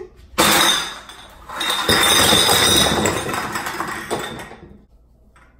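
Handling noise from the recording phone as it is moved and set in place: a sudden knock, then a couple of seconds of scraping and rubbing against the microphone that fades out near the end.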